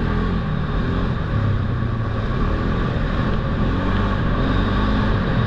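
Polaris Sportsman ATV engine running steadily under way on a dirt track, its pitch wavering slightly with the throttle, over a steady noise of tyres and wind.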